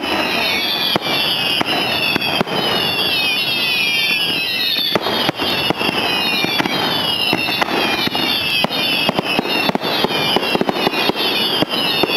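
Fireworks display: overlapping shrill whistles, each falling in pitch over about a second, one after another without pause, over a dense run of sharp pops and bangs from bursting shells.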